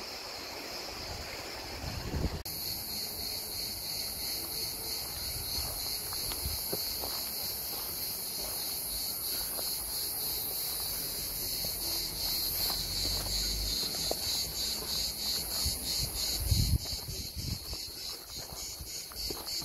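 A chorus of cicadas shrilling with a fast, even pulse, a second, higher-pitched song joining about two seconds in. Footsteps and rustling sound faintly underneath.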